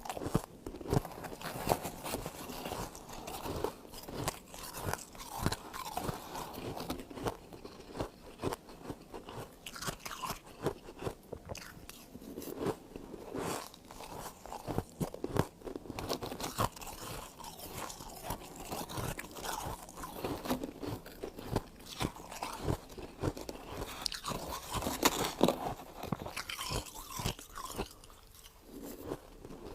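Close-up crunching and chewing of freezer frost in the mouth, a dense run of irregular crisp crackles and crunches.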